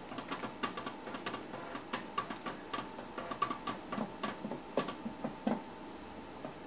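Light, irregular clicks and taps from someone working a computer's mouse and keyboard.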